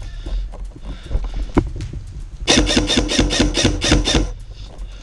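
Airsoft electric gun (AEG) firing a rapid burst of shots, its motor and gearbox whining under the shots, about two and a half seconds in and lasting nearly two seconds. A single sharp click comes just before it.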